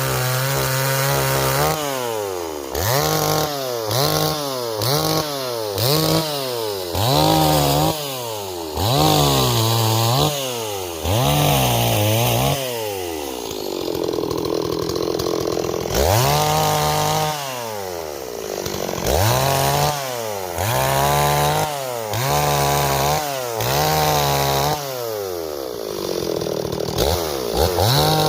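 Stihl 026 two-stroke chainsaw running hard, its engine pitch rising and falling over and over, about once a second, as the throttle is worked. Near the middle it drops to a lower, steadier pitch for a few seconds before the revving picks up again.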